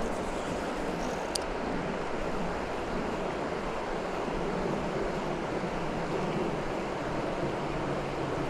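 Steady rushing of a swollen river running high and fast after a flood, with a single sharp click about a second and a half in.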